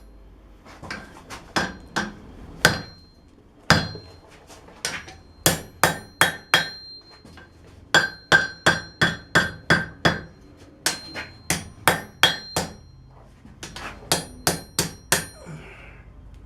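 Blacksmith's hammer striking the forged steel of an old wrench on the anvil to bend a curve into the knife's handle. The blows come in runs, about three a second at the fastest, and each one rings briefly.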